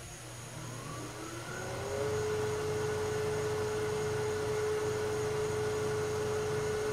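Laguna wood lathe motor and newly fitted spindle spinning up: a whine rising in pitch over about a second and a half, then running steadily at speed.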